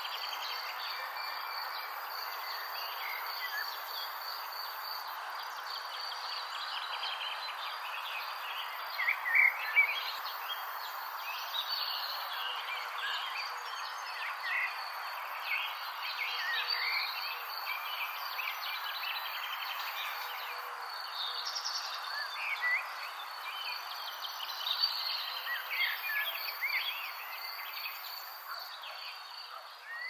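Nature soundscape of many birds chirping and calling over a steady background hiss, with a continuous high insect trill like crickets. It fades out near the end.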